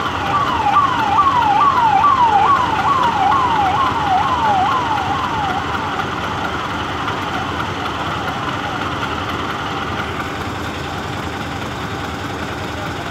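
Vehicle siren sounding a fast, repeating falling sweep, about two or three a second, fading out about six seconds in, over steady road traffic noise.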